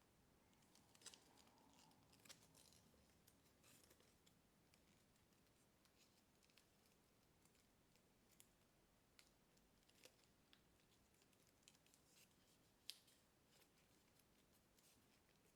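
Faint, irregular crackles and ticks of thin kami origami paper being handled, folded and creased, with one sharper crackle about thirteen seconds in.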